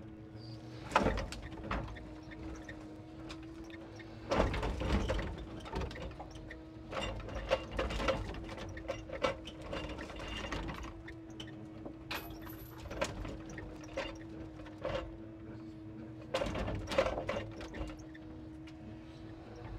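Timber truck's hydraulic loader crane at work over a steady hum, with several bursts of wooden knocking and clatter as the grapple sets a bundle of logs onto the load and the logs settle against each other.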